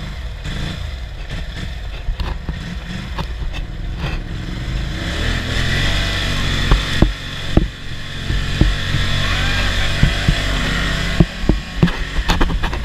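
ATV engine running under load in mud, the revs climbing through the middle. A series of sharp thumps comes in the second half, loudest near the end.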